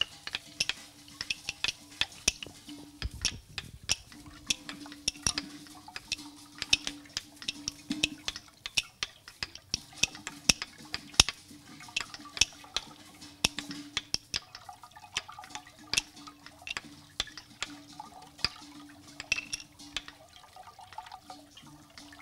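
Many hands stirring and dropping grain in basins: an irregular patter of small clicks and ticks, with a low steady tone underneath that breaks off now and then.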